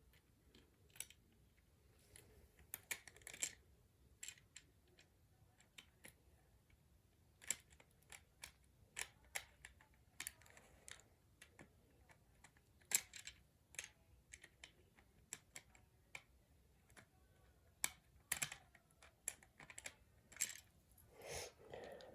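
Scattered small clicks and taps of plastic toy parts and a small screwdriver being handled while screws are fitted into a toy's wing pack, with a few sharper clicks among soft handling noise.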